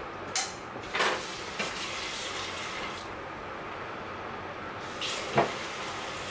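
Steady hiss of a pancake frying in a pan, with a few sharp knocks and clinks of dishes at the sink: a couple in the first second or two, and two more about five seconds in, the last the loudest.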